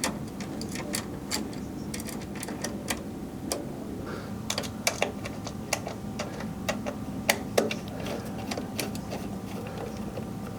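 Irregular small clicks and taps as the metal M.2 heat-sink cover and its screws are handled and lined up over the SSDs, with a steady hum underneath.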